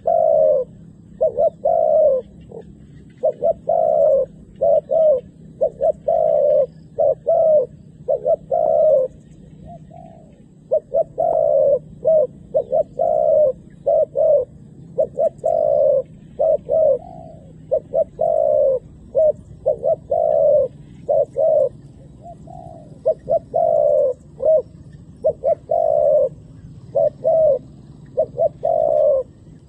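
Spotted dove cooing over and over: low coos in quick runs of a few notes, with short pauses between runs. It is a decoy dove calling to draw wild doves down to the ground.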